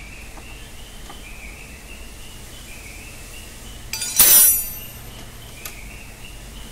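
A single loud metallic clink about four seconds in, from metal parts or a tool striking during work on the car's front end, with a faint high wavering chirp running underneath.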